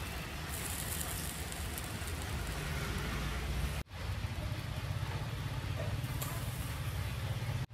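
Steady sizzling hiss from skewered fish and cockles grilling over charcoal, over a low rumble, broken by a brief dropout about four seconds in.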